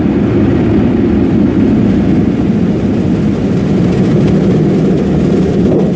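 Car wash air-dryer blowers running loud and steady, heard from inside the car's cabin, like being in a tornado.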